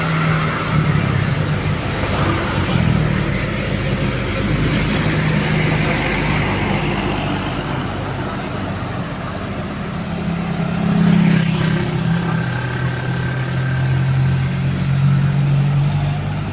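Heavy road traffic, bus engines running as they pull up a grade. There is a short loud hiss about eleven seconds in.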